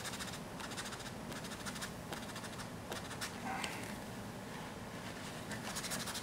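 Wad of toilet paper rubbed back and forth over drawing paper to blend ink into a soft gray gradation: a run of quick, scratchy strokes that ease off in the middle and pick up again near the end.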